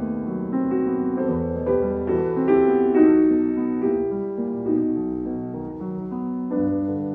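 Background piano music: a calm run of sustained notes and chords changing every half second or so.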